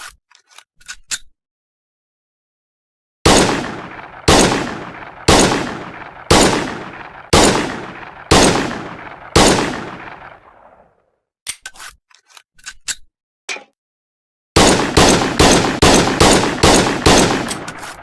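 M1911 pistol firing: light mechanical clicks, then seven single shots about a second apart, each with a ringing tail. After a few more clicks comes a rapid string of about eight shots, roughly three a second.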